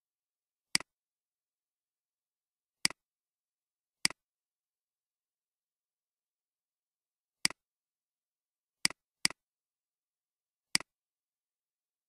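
Seven computer-mouse clicks at uneven intervals, each a sharp click with a fainter tick right after it; two come close together about nine seconds in.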